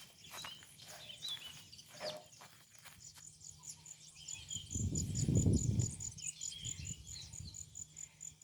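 An insect, likely a cricket, chirping high and evenly, about three to four pulses a second, joined by a few bird calls. Scattered clicks come in the first few seconds, and a low rumble lasting about a second is the loudest sound, near the middle.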